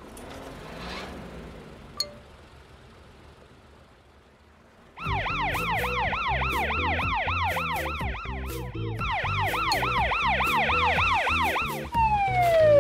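Cartoon police car siren in a fast wail, rising and falling several times a second over a low rumble. It starts about five seconds in after a quieter stretch, and near the end gives way to a falling whistle.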